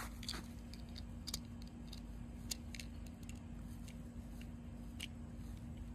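Small electric blower fan of an airblown inflatable running with a faint steady hum, just plugged in and starting to inflate it. A few light clicks come through.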